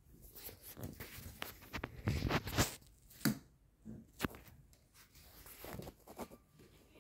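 Close rustling and scraping noises with a few sharp clicks, loudest and busiest about two to three seconds in.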